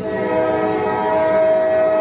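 Train horn blowing one long steady chord of several tones, starting sharply at the outset and held unchanged, over a low rumble.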